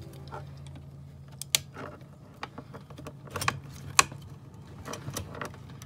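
Metal screwdriver clicking and knocking against the plastic clips and housing of a car's in-tank fuel pump assembly as it is pried at. There are several sharp taps a second or so apart, the loudest about four seconds in, over a steady low hum.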